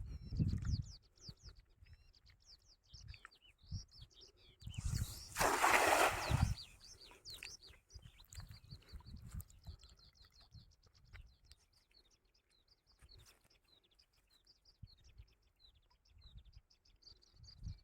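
Small birds chirping and trilling throughout, with many short, quick calls. A loud rushing noise, lasting about a second and a half, comes about five seconds in.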